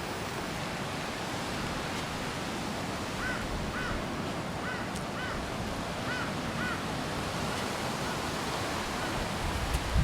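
Steady rush of surf breaking on a beach, mixed with wind and rain noise. Several short high chirps in pairs come from about three to seven seconds in.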